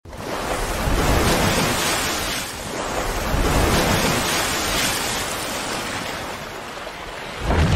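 Intro sound effect: a rushing, surf-like noise that swells and ebbs twice, ending in a deep boom near the end.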